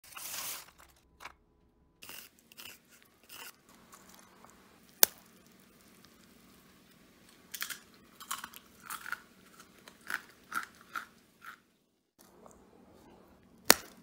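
Crisp homemade tofu-oatmeal crackers snapping and crunching. There are sharp single snaps about five seconds in and again near the end, with a run of short crunches in between.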